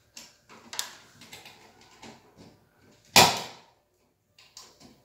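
Small clicks and rattles of hand tools and parts being handled on a smoke detector's mounting base, with one sharp knock a little after three seconds in.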